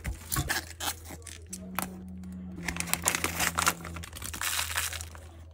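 Clear plastic bag crinkling and rustling as it is handled, a dense run of crackles that is busiest in the second half, over a low steady hum.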